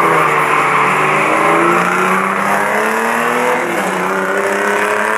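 Two cars accelerating hard off a drag-strip start line, one of them a Chevrolet Celta 1.4 with a chipped engine and a free-flow exhaust filter. The engines rise steadily in pitch, drop at a gear change about three and a half seconds in, then climb again.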